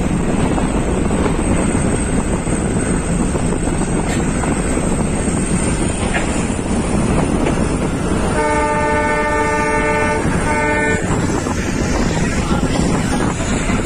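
Train in motion, with steady rumble and wind noise. About two-thirds of the way in the horn sounds twice: a long blast of nearly two seconds, then a short one.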